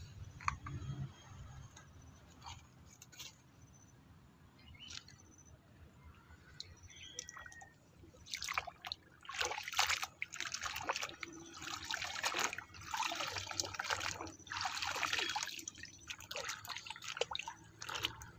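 Hands splashing and sloshing in shallow muddy water while scrubbing a plastic toy excavator clean. The first half holds only faint drips and small clicks. From about eight seconds in, the splashing comes in repeated bursts.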